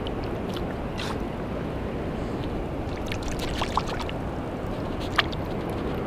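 Steady rushing noise of shallow sea water, with a few small clicks and one sharper click about five seconds in.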